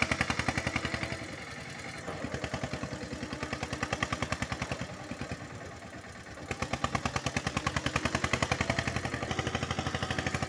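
Eicher 241 tractor's single-cylinder air-cooled diesel engine chugging hard under load in an even, rapid beat of about ten pulses a second as it strains to drag an empty trailer out of soft, rain-soaked ground. The beat drops and quietens twice, about a second in and again around five seconds, then comes back up.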